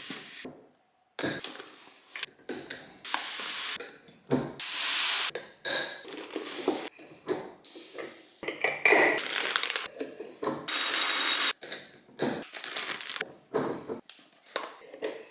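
Glass storage jars and their lids clinking, with short rushes of dry food such as sugar, oats and flour being poured into them, in a string of separate short sounds.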